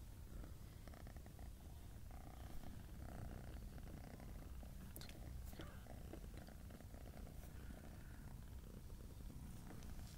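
Domestic cat purring, a low steady rumble, with a few faint clicks about five seconds in.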